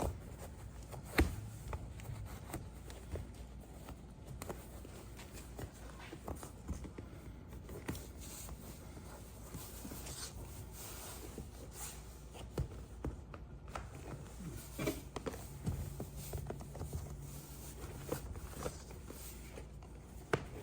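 Hand-handling noises as a cover is pulled and worked over a motorcycle seat: rustling with scattered small clicks and knocks, and a sharp knock about a second in.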